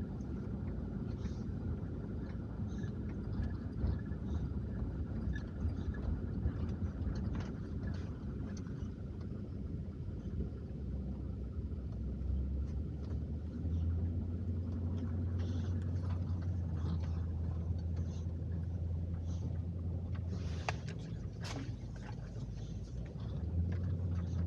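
Car on the move heard from inside the cabin: a steady low rumble of engine and road noise. A deeper hum comes in about halfway through and again near the end, and a few sharp clicks sound shortly before the end.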